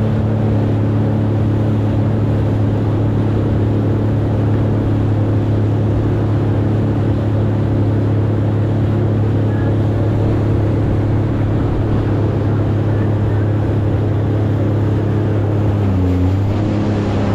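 Jet ski engine running steadily under way, a constant drone with a rushing noise of wind and water over it. The engine note dips briefly and comes back up about sixteen seconds in.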